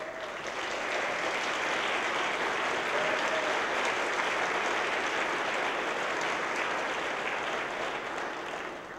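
Audience applauding: a round of clapping that builds within the first second, holds steady, and tapers off near the end.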